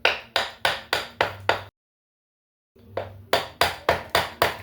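Rapid hammer blows, about three or four a second, as the exhaust fan's bearings are driven. They stop abruptly after about a second and a half and start again a second later.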